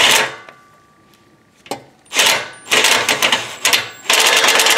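Ratchet wrench clicking in quick runs as the new exhaust header downpipe is bolted up: a short burst at the start, a pause of about a second and a half, then longer runs of rapid clicks.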